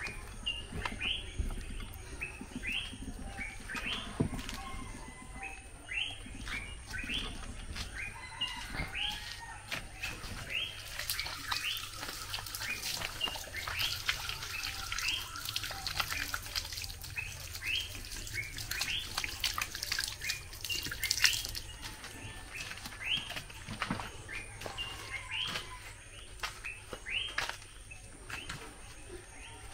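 Water running from an outdoor standpipe tap as hands are rinsed under it, starting about a third of the way in and stopping about two-thirds through. Behind it a bird chirps over and over, short rising chirps about twice a second.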